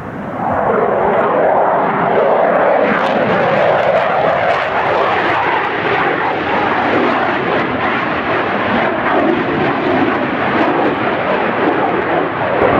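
Loud jet noise from an RAF Eurofighter Typhoon's twin Eurojet EJ200 turbofans as the fighter flies its display, a continuous rushing sound whose pitch drifts as the jet turns and rolls.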